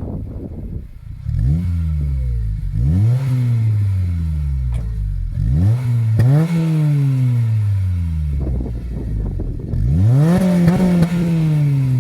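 Honda Civic Si's 2.0-litre four-cylinder engine revved four times through a Megan Racing axle-back muffler on an otherwise stock exhaust. Each rev climbs quickly and then falls back slowly; the last one, near the end, is held a little longer.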